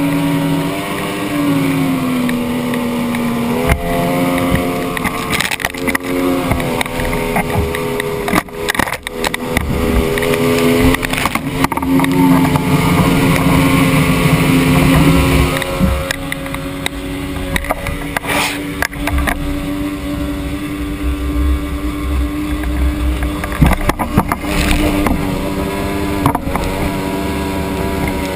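Yamaha outboard motor running hard at close range, its pitch rising and falling as throttle and load change, over the hiss of the prop wash and spray. A few sharp thumps cut through.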